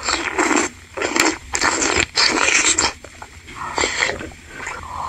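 Close-miked eating sounds: chewing a chewy tapioca-flour meatball (bakso aci) and slurping spicy broth from a wooden spoon, in short wet, irregular bursts.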